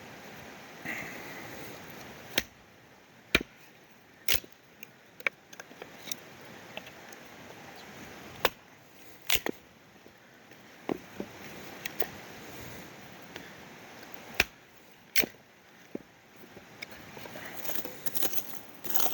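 Dry wood giving sharp cracks and snaps at irregular intervals, about a dozen in all, over a faint steady hiss.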